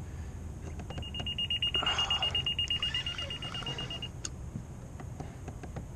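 A rapid, even electronic beeping at one high pitch, starting about a second in and stopping after about three seconds.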